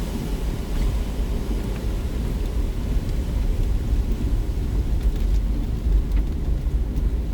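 Hurricane wind gusting against the microphone: a heavy, uneven low rumble that swells and drops.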